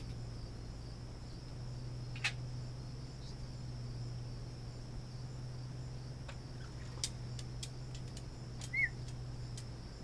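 Steady high-pitched insect drone over a low steady hum, broken by a few sharp clicks and, near the end, one short rising-and-falling bird chirp.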